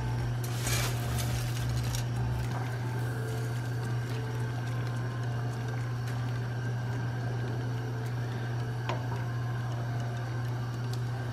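Kitchen cooking sounds: a steady low hum with a brief rustle about a second in and a few light clicks.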